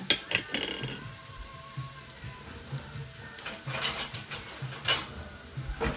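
Onions and tomato paste frying quietly in a pot, with a few sharp clatters of kitchen utensils near the start and again in the second half as a wooden spoon is fetched.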